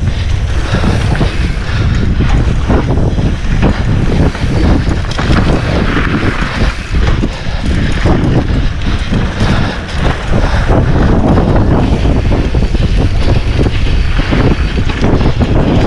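Mountain bike ridden fast down a rough dirt trail: wind buffeting the microphone over the rattle of the bike and its tyres on the ground, with many short knocks as it runs over bumps.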